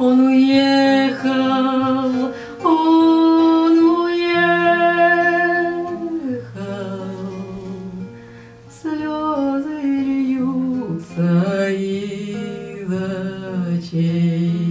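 A woman singing a Russian romance in long held notes with vibrato, accompanied by an acoustic guitar; past the middle the voice drops out for a couple of seconds, leaving the guitar, then comes back.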